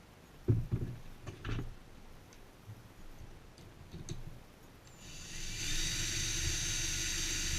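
A couple of knocks of handling on the workbench, then an electric power tool's motor spins up about five seconds in and runs steadily at constant speed.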